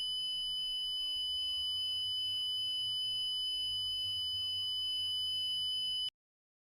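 Steady high-pitched electronic alert tone, a single held pitch, that cuts off abruptly about six seconds in. Fainter lower tones shift in pitch underneath it.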